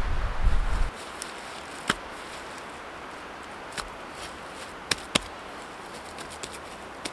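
Wind rumbling on the microphone, cutting off about a second in, then a quiet background with a handful of sharp, isolated clicks, the loudest about two and five seconds in.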